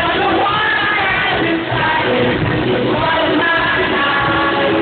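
A live pop-rock band playing, with a male lead singer, recorded from within the audience in a large hall. The music is steady and loud.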